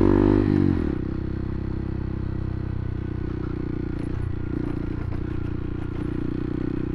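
Motorcycle engine dropping in revs during the first second, then idling steadily with an even pulsing beat.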